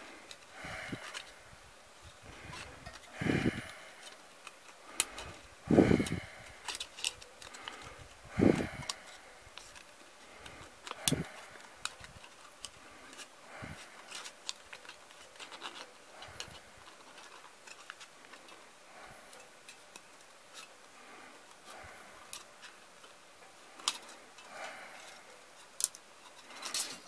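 Scissors snipping through folded aluminium foil, with the foil crinkling and many small scattered clicks, and a few louder crinkles in the first half.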